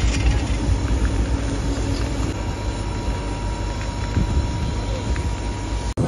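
Fire hose spraying a high-pressure water jet onto a burning lorry: a steady rushing roar with a deep rumble and a thin steady whine. It breaks off abruptly just before the end.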